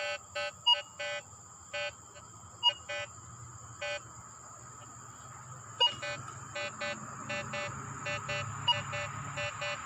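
Minelab Vanquish 340 metal detector beeping in quick, short repeated tones as its coil sweeps over a buried metal target, with an occasional sharper, higher chirp; the beeps pause for about two seconds midway, then come faster again.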